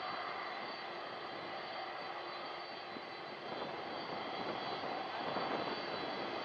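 Boeing 747's four jet engines running steadily as the jumbo jet rolls along the runway: a continuous jet rush with a thin high whine, growing a little louder about halfway through.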